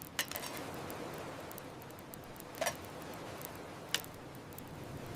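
Light steady rain hiss with three short, sharp ticks spread through it.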